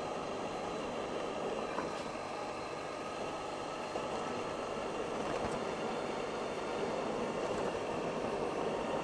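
Suzuki Burgman 650 scooter riding along at a steady pace: its parallel-twin engine running under a steady rush of wind and road noise that grows slightly louder toward the end.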